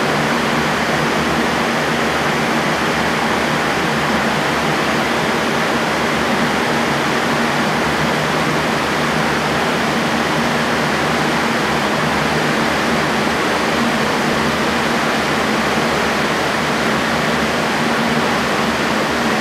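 Electric fans of a tornado simulator running at high speed. A steady rush of moving air with a low, even motor hum underneath.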